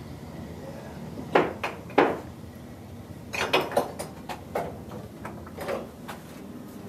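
Motorcycle engine parts being handled and shifted on wooden shelving: a series of short knocks and clunks scattered irregularly, the loudest two about one and a half and two seconds in.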